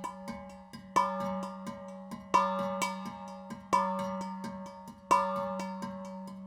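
Metallic percussion struck in a slow, even pulse about every second and a half, each hit ringing on and fading, with lighter quick taps between the hits. A steady low drone sounds underneath.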